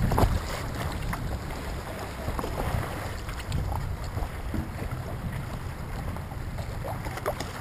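Choppy tidal-surge water splashing and lapping against a stand-up paddleboard, many small irregular splashes over a low rumble of wind on the microphone.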